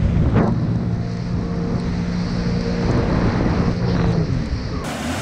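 Jet ski engine running at speed, its pitch dipping and rising a couple of times with the throttle, over the rush of the wake and wind on the microphone. Near the end the engine drops away to a hiss of water and wind.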